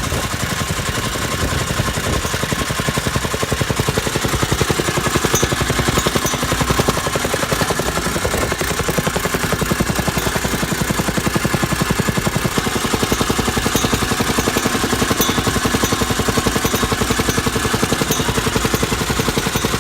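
Meiwa RT-70F tamping rammer running on its Honda GX120 four-stroke engine, its foot pounding at a fast, steady rhythm of about ten blows a second. It grows a little louder a few seconds in.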